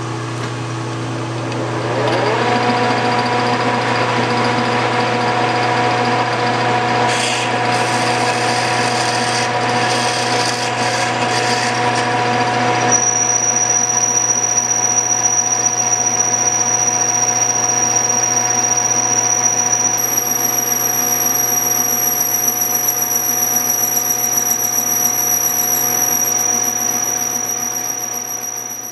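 Metal lathe running as a deliberately dulled 3/8-inch twist drill bores into spinning brass bar stock; the dull edge keeps the drill from grabbing in the brass. The machine's tones rise as it spins up about two seconds in and then hold steady over a low hum. A thin high whine joins about halfway through, and the sound dies away at the end.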